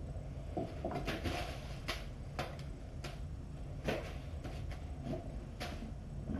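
Scattered rustles and light taps from kittens being played with using a wand toy, about half a dozen short strokes over a steady low room hum.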